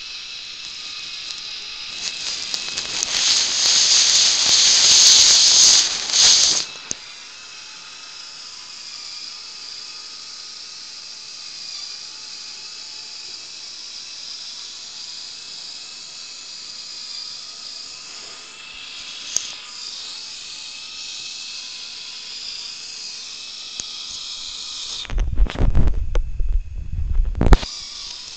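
A small Lego Technic electric motor whining steadily as it drives the walker's gears and leg linkages. A loud hissing, scraping noise runs from about two seconds in to about six seconds in, and heavy low thumps and rumble come near the end.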